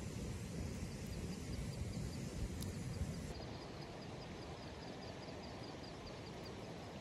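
Night-time outdoor ambience: an insect chirps high in a quick, even rhythm over a low, uneven rumble that eases after about three seconds.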